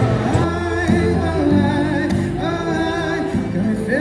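Live music: a singer holding long notes with vibrato over instrumental backing.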